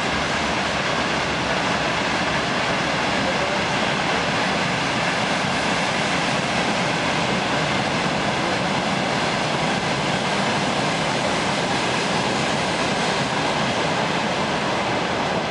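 Trains moving through a station: a steady, even rushing noise of rail wheels on track.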